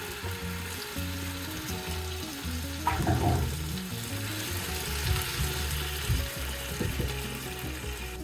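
Food sizzling as it fries in a hot pan, with a louder stirring scrape about three seconds in.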